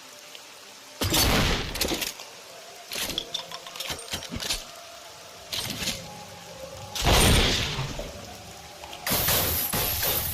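Double-barrel shotgun sound effects: three loud shots, about a second in, about seven seconds in and just after nine, each dying away briefly. Between them come sharp metallic clicks, the sound of the gun being handled between shots.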